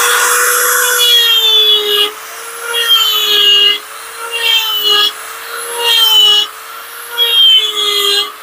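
Electric die grinder with a small rotary burr running with a steady whine, cutting into western red cedar in short passes about once a second. The pitch sags a little under load and each pass comes in louder and harsher as small holes are carved.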